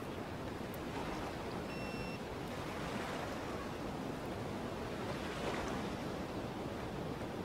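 Steady outdoor wind and water ambience. About two seconds in, a short single-tone electronic beep, the plotter's power-on beep as it starts up.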